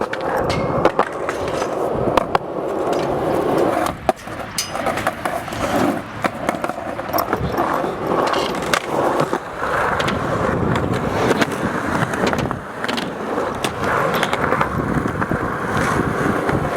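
A skateboard rolling, with a steady noise from the wheels and frequent sharp clacks and knocks from the board throughout.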